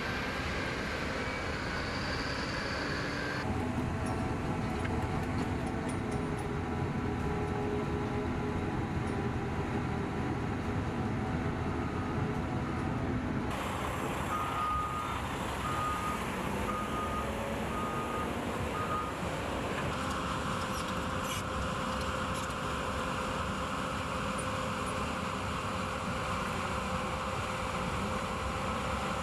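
Heavy diesel trucks and earthmoving machinery running, heard in several short clips. Midway, a reversing alarm sounds a string of evenly spaced beeps for a few seconds.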